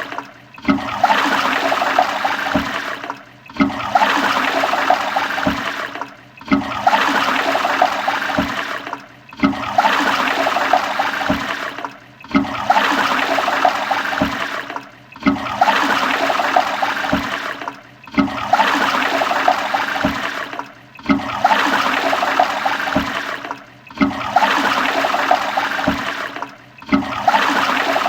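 A toilet flushing over and over: a rush of water that starts loud and tails off, cut short by a brief gap and starting again about every three seconds, about ten times.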